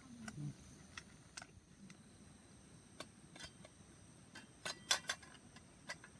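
Scattered sharp clicks and ticks at irregular intervals, with a quick cluster of louder ones near the end, over a faint steady high-pitched whine.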